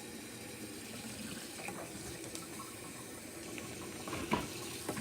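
Steady noise of running water, like a kitchen tap into a sink, with a few light knocks about four seconds in.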